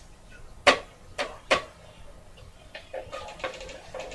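Plastic board-game wheel and pieces being handled: a few sharp clicks in the first two seconds, then a short run of faint quick ticks about three seconds in.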